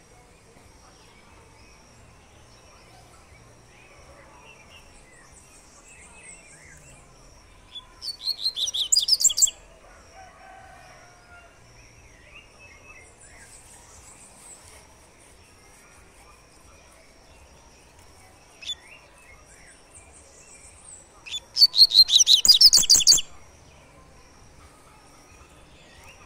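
Double-collared seedeater (coleirinho) singing its 'tui-tui' song: two short bursts of fast, repeated high notes, about eight seconds in and again about twenty-one seconds in. Faint chirps of other birds come in between.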